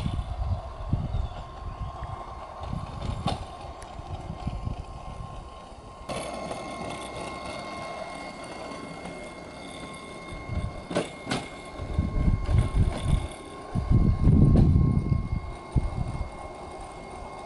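Small 5-inch gauge railbus running along the garden railway track, its wheels rumbling and clattering over the rails in uneven bursts, loudest about three-quarters of the way through as it comes close.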